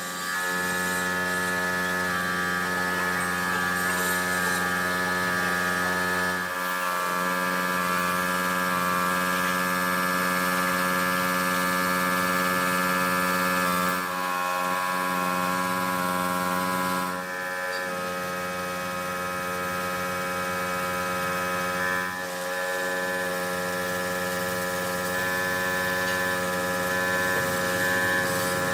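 Steady, loud machine hum at a constant pitch, like an electric motor or pump running at constant speed, with a few brief dips in level.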